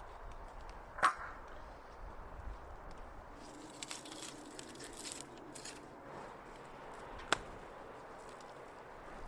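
Raw bison meat being cut and handled with a knife on a wooden table: quiet cutting and handling noises, with two sharp knocks, a loud one about a second in and a smaller one near the end.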